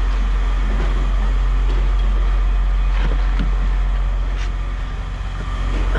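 A vehicle engine running, a steady low rumble at an even level with a few faint clicks over it.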